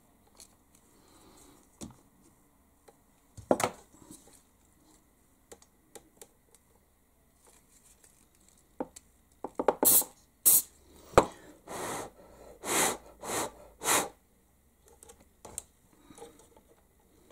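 Super glue (cyanoacrylate) activator sprayed from an aerosol can in five or six short bursts, starting about ten seconds in, to set the glue holding a small LED bulb in place. Before that, light clicks and taps of small parts being handled.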